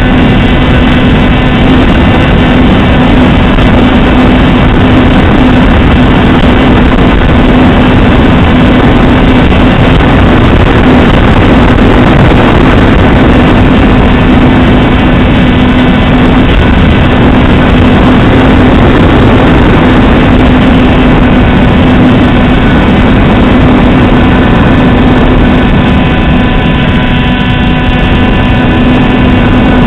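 Radio-controlled model airplane's motor and propeller running steadily, a loud constant drone heard from a camera mounted on the plane.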